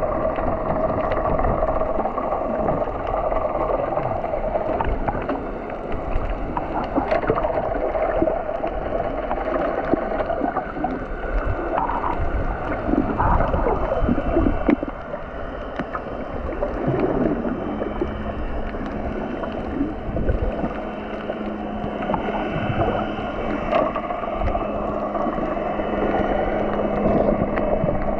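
Muffled underwater sound from a snorkeler's camera: gurgling water with the steady drone of boat engines carried through the water. A low steady hum joins about 17 seconds in.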